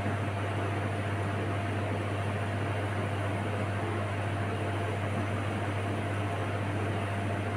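Steady hum of running kitchen machinery: a strong low drone under an even hiss, with a faint steady tone above it.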